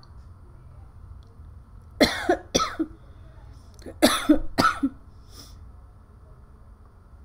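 A woman coughing in two short fits about two seconds apart, each of two or three sharp coughs, over a steady low hum.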